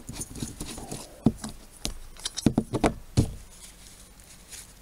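Hands working a screw-on gas cartridge and a crumpled paper tissue: a run of small clicks and taps, busiest in the middle, as the stove's hose connector is unscrewed from the cartridge, with paper rustling.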